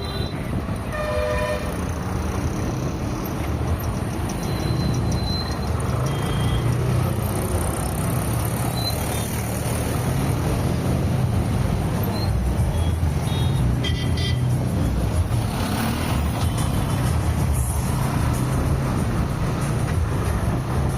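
Road traffic heard from a car driving on a highway: a steady engine and road rumble, with several short horn toots from surrounding vehicles, the first about a second in and more around the middle.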